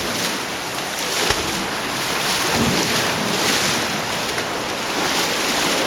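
Fast cave stream in near-flood conditions rushing steadily past and churning around a caver's legs as he wades upstream against the current.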